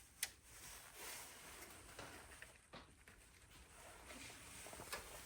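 Near silence with a few faint clicks and light rustling: small screws and plastic circuit-board spacers being handled as they are fitted.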